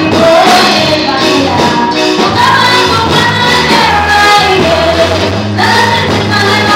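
Live gospel music: a woman singing lead into a microphone over a band with drum kit and a steady bass, with backing voices joining in, loud through the PA.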